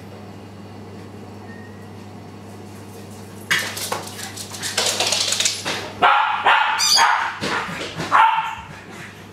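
Japanese Spitz barking and yipping in excited greeting, a quick run of short high calls with a thin squeal among them. It starts about four seconds in, just after a sudden rush of noise, and tails off near the end.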